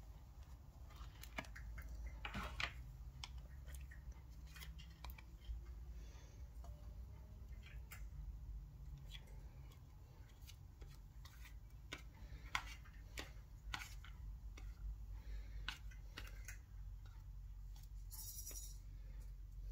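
Scattered small clicks and taps of plastic slime tubs and lids being handled over a metal muffin tin, with a brief hiss near the end, over a low steady hum.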